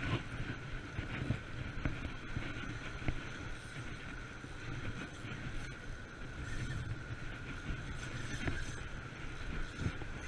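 Wind buffeting the microphone over surf washing around the rocks, a steady rough rumble with a thin, steady whine underneath.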